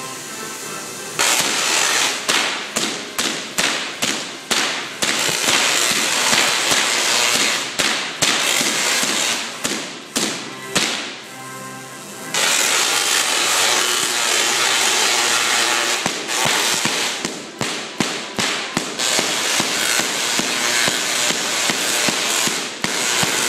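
High-voltage electric sparks crackling and snapping. About a second in they start as a rapid run of sharp bursts, each dying away quickly, and from about twelve seconds in they become near-continuous crackling.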